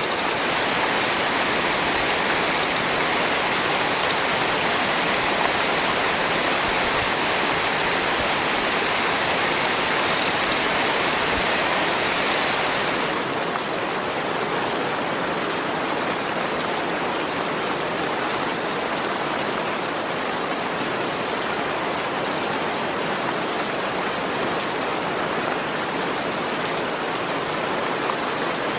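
Heavy rain pouring steadily, a dense even hiss of rainfall; it eases slightly about halfway through.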